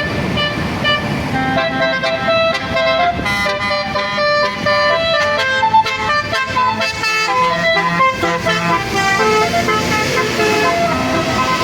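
A bus's Basuri telolet horn playing a melody: a run of loud, multi-toned horn notes, some short and some held, stepping up and down in pitch.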